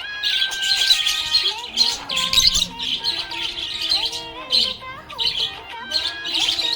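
Budgerigars chirping and chattering in quick high bursts, several a second. A tune of held, stepping notes plays under them.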